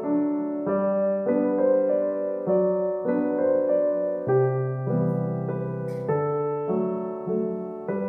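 Background piano music, its notes and chords changing every half second or so.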